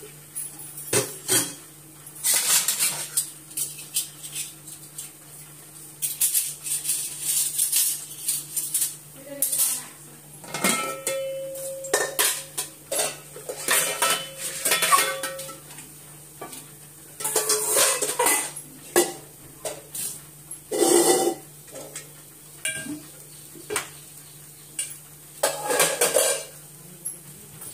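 Metal dishes and utensils clattering and clinking in irregular bursts as they are handled and set down, over a steady low hum.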